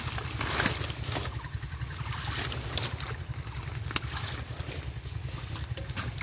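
Splashing and sloshing of shallow muddy water with the wet rustle of water hyacinth being pulled out by hand, over a steady low rumble of wind on the microphone. A few sharp knocks stand out, one about four seconds in and one near the end.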